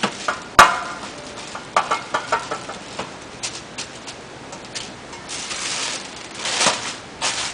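A metal tube rolled and knocked against a stainless steel pan while flattening peanut and pumpkin-seed brittle under a paper sheet: a series of clicks and clacks, with one sharp ringing metallic knock about half a second in. Near the end the paper sheet rustles as it is lifted and turned over.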